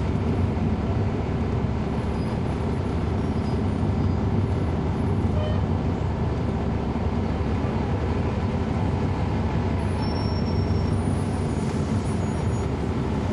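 Cummins ISL9 diesel engine of a 2011 NABI 416.15 (40-SFW) transit bus running steadily, heard from the rear seat inside the bus, with a low drone and road noise.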